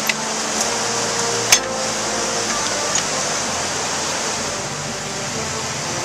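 Steady rush of the River Tees running fast over rocky rapids, with a few short sharp clicks, the loudest about a second and a half in.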